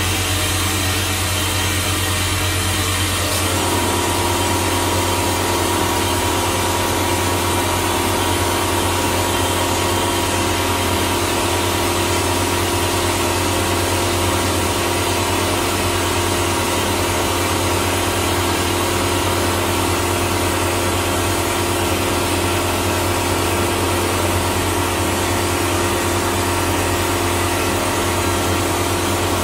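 Vapor blasting gun with a 3D-printed nozzle spraying compressed air and abrasive slurry steadily onto a part inside a blast cabinet, over a steady low hum. A steady tone joins the spray about three and a half seconds in.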